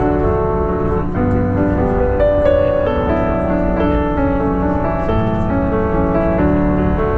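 Background instrumental music with piano, held notes changing in steady succession.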